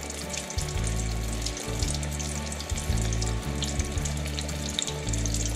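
Breaded scallops deep-frying in vegetable oil in a fryer basket, the oil bubbling and crackling steadily. A music track's bass line plays underneath.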